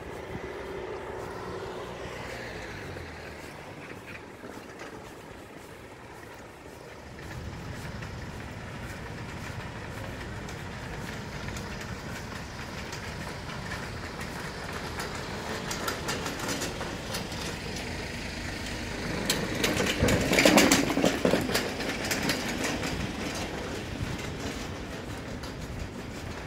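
Outdoor street rumble, with a car passing in the first few seconds. Later, small wheels of a hand cart rattle over paving blocks, growing to a loud clattering run about twenty seconds in and then easing off.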